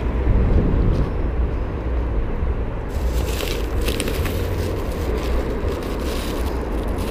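Full clear plastic rubbish bags crinkling and rustling as they are lifted and carried, starting about three seconds in, over a steady low rumble.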